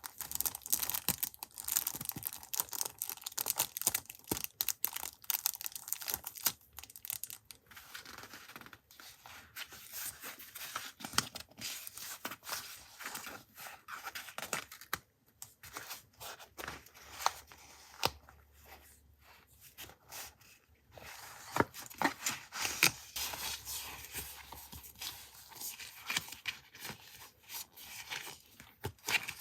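Paper being handled by hand: tearing, rustling and crinkling, with many small taps and clicks and a quieter spell about halfway through.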